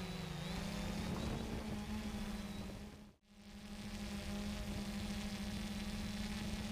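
3DR Solo quadcopter's electric motors and propellers humming steadily, with a slight drop in pitch just after the start as the motors change speed. The sound cuts out briefly a little over three seconds in, then fades back in.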